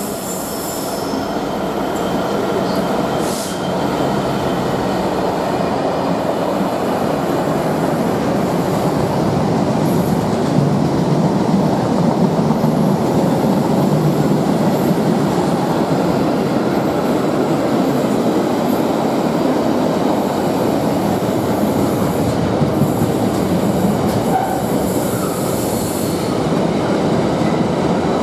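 Freightliner Class 66 diesel locomotive passing, followed by a long intermodal container train rolling through on its flat wagons. The steady heavy rumble of wheels on rail builds over the first couple of seconds and then holds, with wheel squeal at times.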